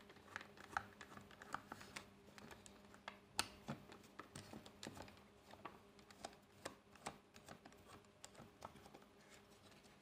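Faint, irregular clicks and scratches of a Phillips screwdriver working the small screws out of a 12-volt car horn's back cover.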